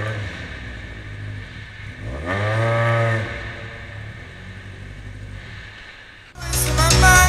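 Rally car engine idling, then revved once about two seconds in, climbing and dropping back to idle. Music starts loudly near the end.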